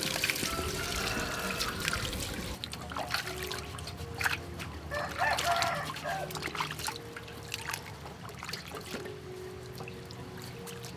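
Water pouring into a metal basin and splashing as beetroots are rinsed, then trickling and sloshing as they are scrubbed by hand in the water. It becomes quieter about two and a half seconds in.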